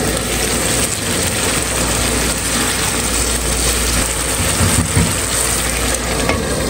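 Yogurt-marinated chicken sizzling and bubbling in the water it has released, in a covered frying pan: a steady hiss with fine crackles over a low hum.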